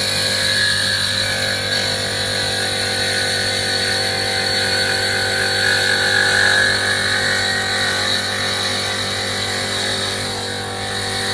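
Electric stained glass grinder running steadily, its diamond bit grinding the edge of a piece of glass; the grinding grows louder for a few seconds midway.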